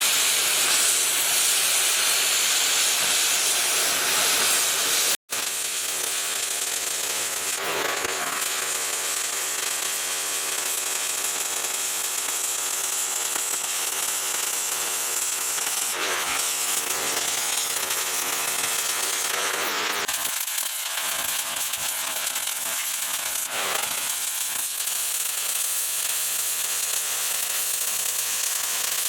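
Steady, loud hiss that runs without a break except for a split-second dropout about five seconds in.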